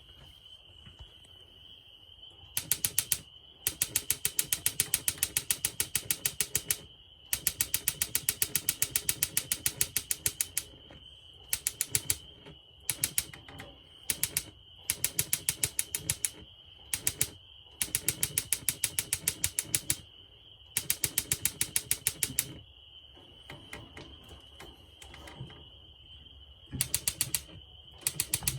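Propane heater's spark igniter clicking rapidly, about ten clicks a second, in repeated runs that stop and start again as the ignite button is pressed and released; the pilot has not caught yet while the gas line primes.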